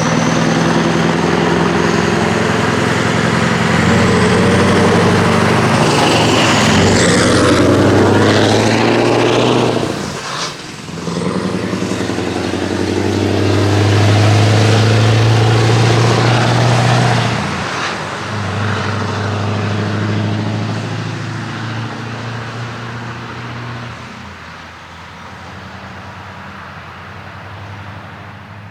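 Scania R500 V8 trucks with open exhaust pipes running loudly under load as they pull away. There is a short break about ten seconds in, then a second loud stretch, and after that the engine note fades away.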